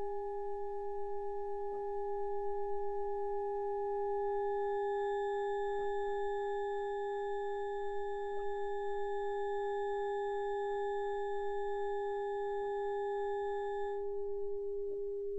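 Experimental electric-guitar and mixer drone: one steady pure tone held throughout with a few fainter higher tones above it, the higher tones dropping out near the end so the low tone rings on alone. Faint scattered clicks sit underneath.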